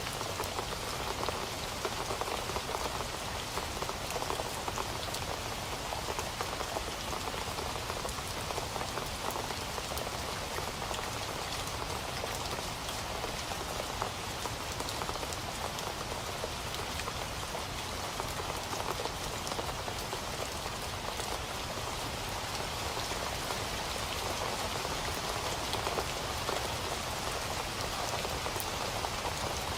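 Steady rain falling, a dense, even patter of drops that holds without a break.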